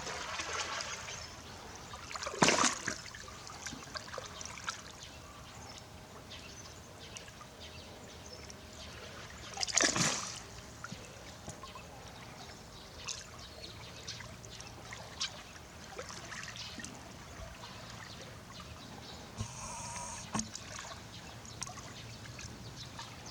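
Hippos moving in their pool: water trickling and splashing, with two louder splashes about two and a half seconds in and again about ten seconds in.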